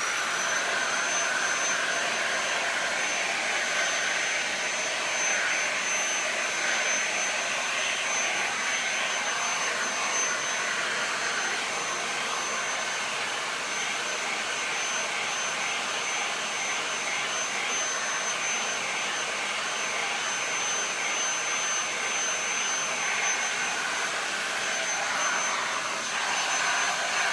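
Small vacuum cleaner switched on and running steadily with a high whine over its airflow hiss, cleaning dust out of the inside of an opened iMac.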